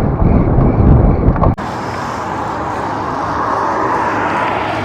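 Outdoor background noise: a heavy low rumble, then about one and a half seconds in an abrupt switch to a steady, brighter rush of traffic that swells a little before settling.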